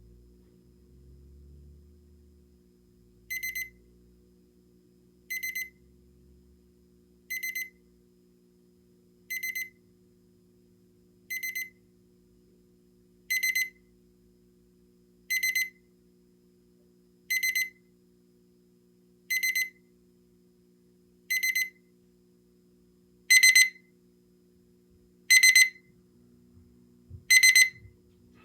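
Electronic alarm beeping: a short burst of high-pitched beeps about every two seconds, starting a few seconds in. The bursts get louder twice, about halfway through and again near the end, as an escalating alarm does.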